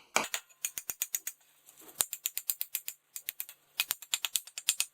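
Sharp, light clicks in quick runs of several a second, with short pauses between the runs.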